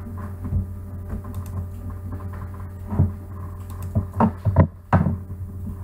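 Steady low electrical hum in the recording, with a few short dull knocks about three seconds in and again between four and five seconds in.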